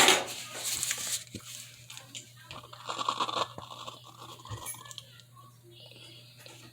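Close-up crunching of someone biting into and chewing chunks of cornstarch. It is loudest at the first bite and comes again about three seconds in, then fades to softer crackles.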